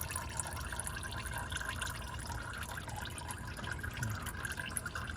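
Engine oil draining from the oil pan of a 5.7 Hemi into a drain pan, a steady pouring trickle.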